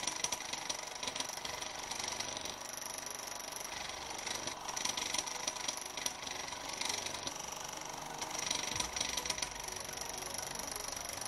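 Small thermoacoustic Stirling engine running steadily on a test bench, its gas column oscillating at about 24 Hz and making a steady mechanical sound.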